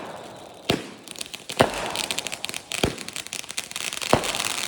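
Fireworks going off: four loud bangs a little over a second apart, with dense crackling filling in from about a second in.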